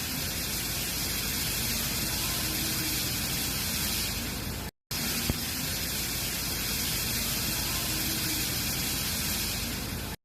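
Cooling water rushing steadily through an induction furnace's water circuit, run after a repair to check that it flows normally. It cuts off for a moment about halfway through, then carries on as before.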